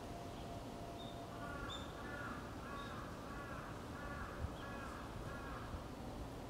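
A crow cawing: a run of about seven evenly spaced caws, a little over one a second, over steady outdoor background noise.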